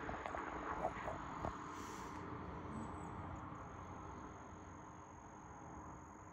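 Outdoor roadside ambience: a low hiss of distant traffic slowly fading, under a thin, steady, high-pitched insect-like tone, with a few faint clicks in the first second and a half.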